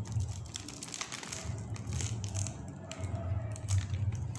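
Crinkling of a plastic snack bag as it is handled and a handheld mini heat sealer is slid along its top edge to seal it, with irregular crackles over a low rumble.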